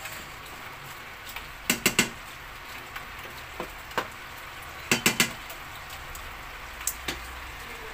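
Wooden spatula knocking and scraping against a stainless steel pot while stirring a thick jackfruit and coconut-milk stew. There is a cluster of quick knocks about two seconds in, another about five seconds in, and a few single knocks between and after.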